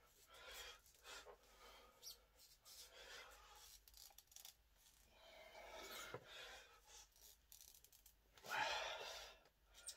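Faint rubbing and scraping of hands on the wraps around a 6-inch grade 8.8 steel bolt being bent by hand, in short uneven bursts, with a louder noisy burst about eight and a half seconds in.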